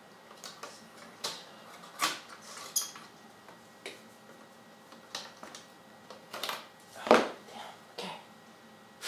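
Irregular clicks and clatters as a circuit board held by plastic latch pins is worked loose and knocks against the metal chassis of an AMI-Rowe R-88 jukebox amplifier. The loudest knock comes about seven seconds in.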